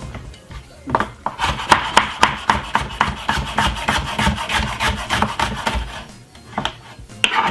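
Knife chopping a red bell pepper on a cutting board: quick, regular strokes about four a second that keep up for several seconds, then stop.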